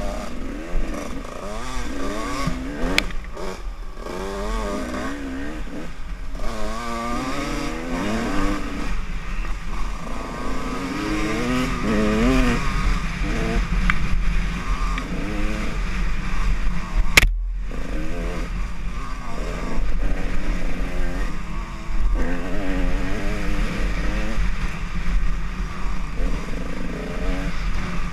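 Dirt bike engine revving up and down continually as the rider works the throttle on a rough trail, its pitch rising and falling every second or two. About seventeen seconds in there is a sharp click, then a brief gap in the sound.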